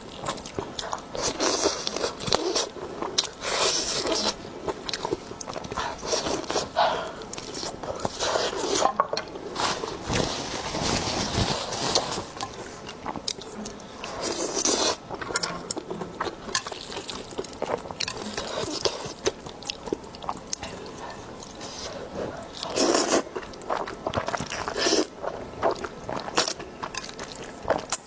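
Eating sounds: food being bitten, chewed and crunched in a steady irregular run of small clicks and crunches.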